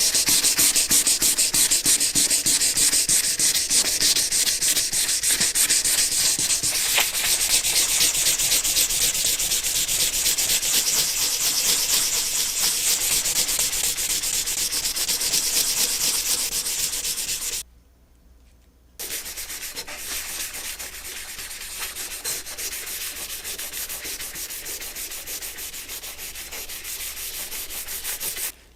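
Sanding: a continuous rasping rub that stops for about a second partway through, then carries on more quietly.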